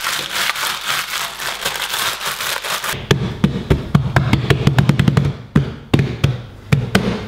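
Pizza dough being worked by hand on a floury kitchen worktop: a rubbing, scraping rustle for about three seconds, then a run of quick, irregular thumps and slaps as the dough is pressed and pushed flat.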